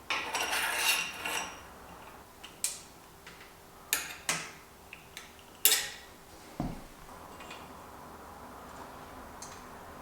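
Metal tools and parts being handled, clinking and clanking. A short rattle comes first, then a handful of sharp separate clinks and one duller knock a little past halfway.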